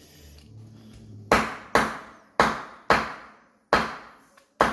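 A knife chopping through the crackling of a roasted pork belly roll onto a cutting board: six sharp crunching strokes, starting about a second in and coming roughly every half second to a second, the sign of very crisp skin.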